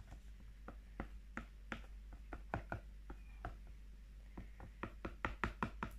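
Chopsticks clicking and tapping against a bowl while stirring a cornflour-and-shampoo slime mixture: irregular light clicks, several a second, coming faster and louder near the end.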